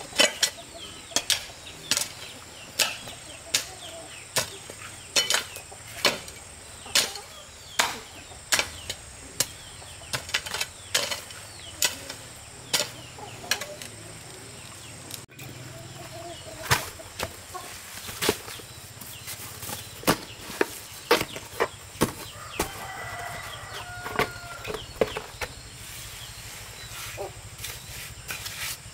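Repeated sharp tool blows in a steady rhythm, more scattered after a short pause about halfway in. Chickens cluck briefly about two-thirds of the way in.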